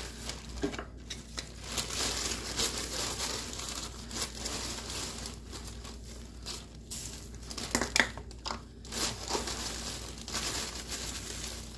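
Plastic bag crinkling and rustling as crushed graham crackers are shaken out of it into a pot of puffed rice cereal, with one sharp click about eight seconds in.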